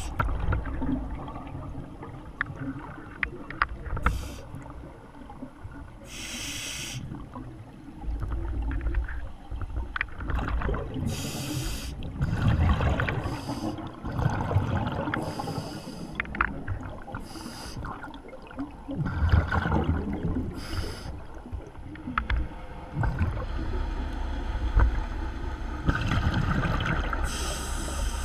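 Scuba diver breathing through a regulator underwater: a brief hissing inhalation every few seconds, with low bubbling exhalations between.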